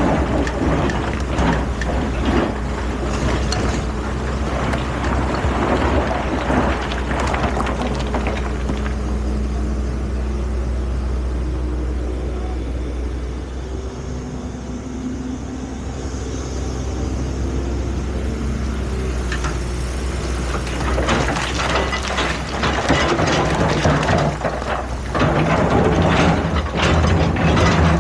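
Excavator's diesel engine running with a steady low drone, overlaid by metallic clanking and scraping from the bucket, boom and tracks at work. The clanking thins out for several seconds in the middle and comes back harder after about twenty seconds.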